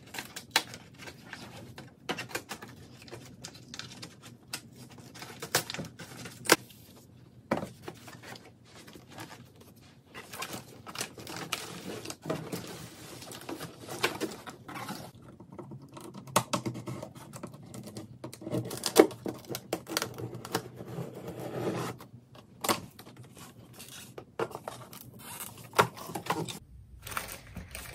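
Scissors cutting and scraping along packing tape on a cardboard shipping box, then cardboard flaps pulled open and handled: irregular clicks, scrapes and rustles.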